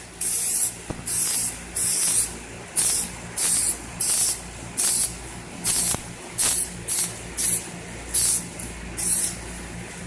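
Aerosol can of Klear headlight coating spraying in short bursts, about fifteen quick hisses spaced half a second to a second apart, as the clear UV-cure coat is laid onto a scuffed headlight lens.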